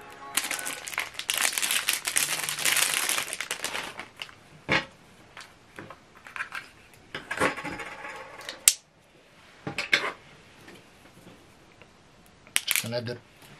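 Plastic wrapping crinkling and rustling for the first few seconds, then scattered light clicks, taps and rustles as a small remote control and its AAA batteries are handled.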